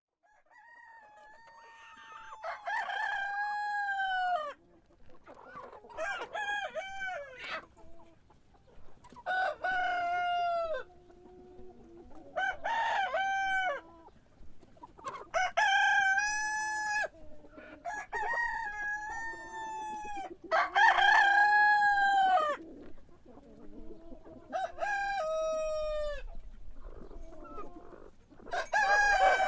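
Rooster crowing again and again, about nine long cock-a-doodle-doo crows roughly every three seconds, with softer low clucks between the crows.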